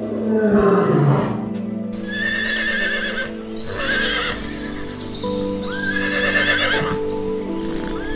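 Horses whinnying: about three long quavering whinnies a couple of seconds apart, over steady sustained background music. A short, loud, falling animal call comes in the first second.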